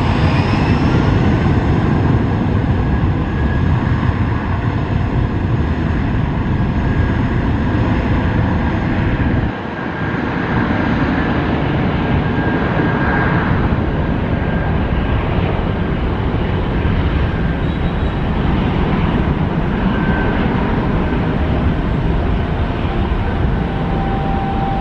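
Airbus A320 twin jet engines running at takeoff power during the takeoff roll: loud, steady jet noise with a faint whine, fading slightly as the aircraft moves off down the runway. There is a brief drop in level about ten seconds in.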